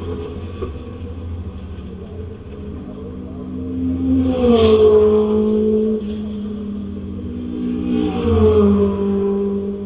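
Porsche 911 RSR's air-cooled flat-six engine pulling under power. Twice, about four seconds in and again around eight seconds, it rises in pitch and loudness and then drops sharply in pitch as it changes gear.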